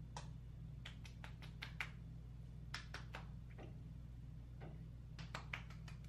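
Hands patting a thick cream onto the face: quick light slaps in runs of several, with pauses between them, over a steady low room hum.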